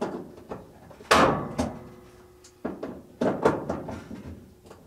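Knocks and clatter of a drain hose being worked back onto a top-load washer's pump. A loud thunk about a second in rings on briefly, and several smaller knocks follow.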